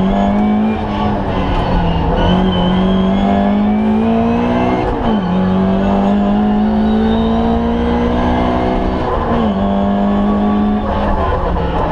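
Ford Escort Mk2 1300 rally car's four-cylinder engine heard from inside the cabin, running hard at high revs with the pitch climbing slowly. Several gear changes break it up, where the note drops and then climbs again, about five and nine and a half seconds in.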